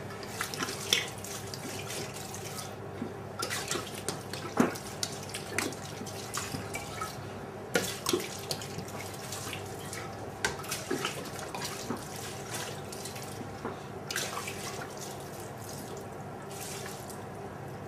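Red wine being poured from a jug over raw chicken pieces and vegetables in stainless steel pans: a trickling, splashing pour with scattered drips.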